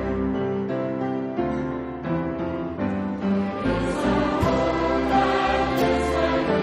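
A choir singing with instrumental accompaniment, moving through long held chords over steady bass notes.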